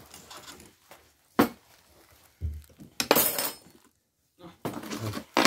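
Tableware clinking and knocking: glasses, plates and spoons set down and moved on a table, with a sharp knock about a second and a half in and longer clatters around three seconds and near the end.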